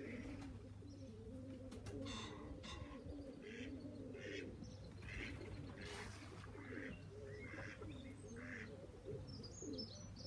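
Pigeons cooing, several overlapping at once, with small birds chirping briefly over them every second or so.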